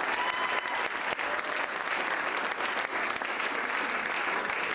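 Theatre audience applauding, a dense, steady clapping at the end of a musical number.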